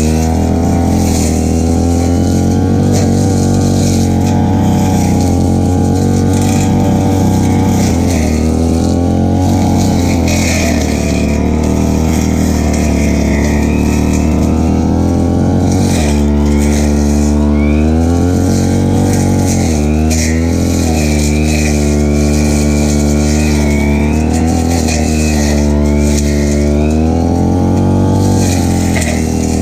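Stihl FR3001 backpack brushcutter engine running at high throttle. Its pitch holds steady at first, then dips and rises again several times in the second half.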